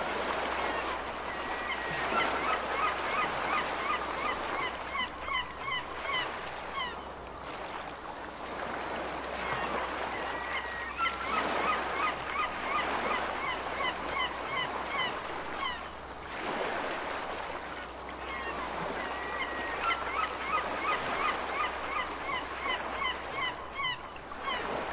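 Ocean waves washing steadily as a gull calls three times. Each time it gives a drawn-out note followed by a rapid series of short calls lasting about five seconds.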